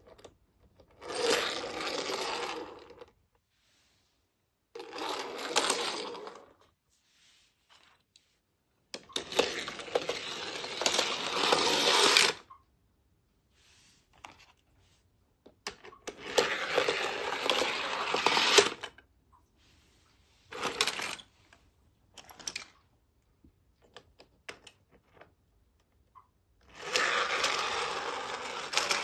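Small die-cast metal toy cars rolling and rattling down a plastic spiral ramp. There are several runs, each a rattling rush lasting one to three seconds, with quiet in between.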